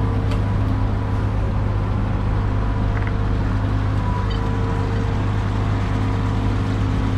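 A mini excavator's diesel engine running at a steady, constant speed.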